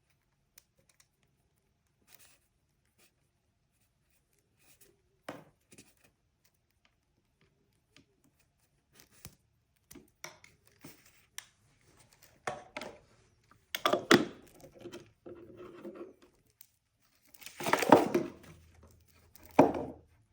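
Packaging being handled, crinkled and torn. A few faint scattered clicks come first, then irregular rustling from about halfway, loudest around two-thirds of the way in and again near the end.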